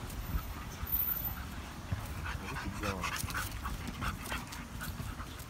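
A chow chow puppy and an adult beagle play-fighting: dogs panting, with short, irregular play noises.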